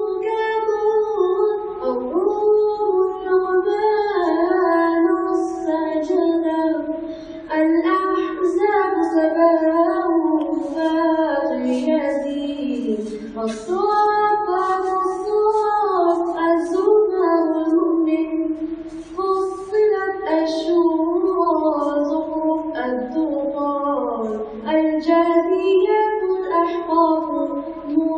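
A single voice singing the names of the Quran's surahs in turn as a slow melodic chant. The phrases are long, with notes held and gliding, and there are no instruments.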